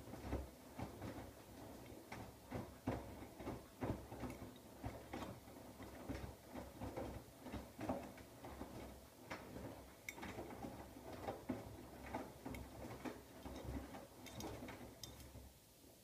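Siemens iQ700 front-loading washing machine in the wash phase of a 60 °C whites programme. The drum turns with a low motor hum while the wet laundry and sudsy water tumble and slosh with irregular soft thuds, about two or three a second. Near the end the drum stops and the sound drops away.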